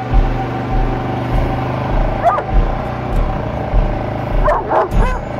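A dog barks once about two seconds in and twice near the end, over the steady idle of an ATV engine.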